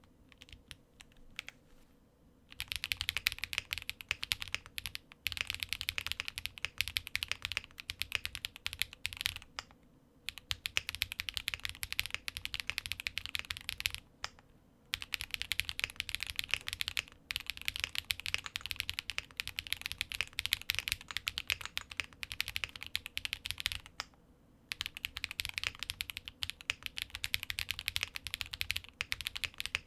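QK65 mechanical keyboard with Krytox-lubed Geon Peri linear switches on a POM plate being typed on: a few scattered keystrokes, then fast continuous typing in long runs broken by brief pauses.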